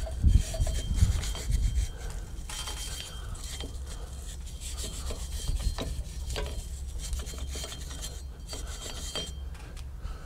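Hand wire brush scrubbing flaky rust off a steel drum-brake backing plate and its shoe contact pads, in quick scratchy strokes, loudest in the first two seconds and lighter after.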